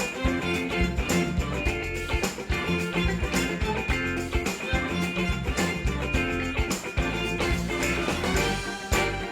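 Background music: an upbeat guitar-led track with a steady drum beat.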